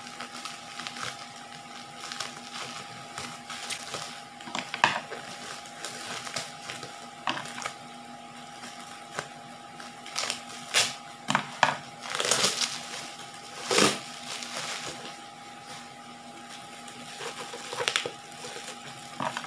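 Bubble wrap being handled and pulled off a wrapped item, crinkling and rustling with irregular sharp crackles and a few louder rustling bursts past the middle. A faint steady hum runs underneath.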